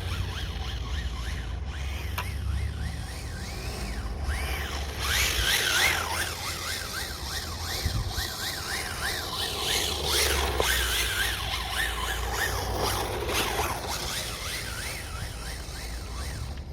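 Rebuilt radio-controlled car's motor whining, its pitch rising and falling over and over in quick arches as the throttle is blipped, with wind rumble on the microphone.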